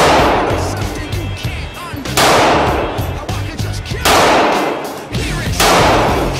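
A .40-calibre Glock pistol fired four times, single shots about two seconds apart. Each is a sharp crack followed by a long echo off the walls of an indoor firing range.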